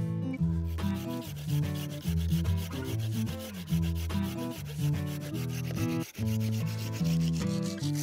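Hand saw cutting through a lichen-covered dead branch in rapid, steady back-and-forth strokes, starting about a second in. Background guitar music plays underneath.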